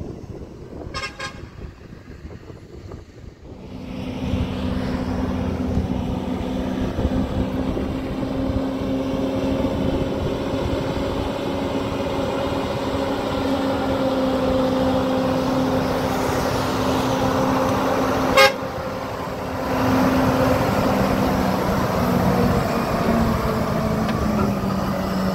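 A steady engine-like drone that sets in a few seconds in and runs on, holding an even pitch and dropping slightly near the end, with one sharp click about 18 seconds in.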